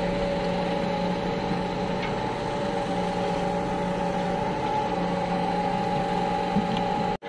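Ropa Maus 4 sugar-beet cleaner-loader running steadily, a constant machine hum with several fixed tones.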